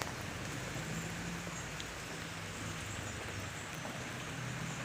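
Rice threshing machine running steadily: a low engine hum under a continuous hiss.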